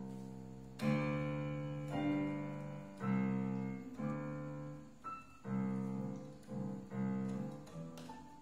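Electronic keyboard in a piano voice, chords struck about once a second and left to fade, coming a little quicker in the second half, with a few single higher notes between them.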